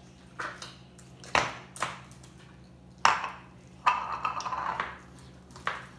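A spoon clinking and knocking against a bowl as slime is stirred: several sharp clinks at uneven intervals, with softer scraping between them.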